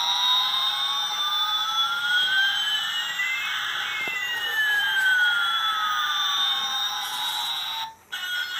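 Electronic siren-like whine from a battery-powered light-up toy airliner's sound chip: two tones, one gliding slowly up and the other gliding down, crossing about halfway through, then cut off briefly near the end.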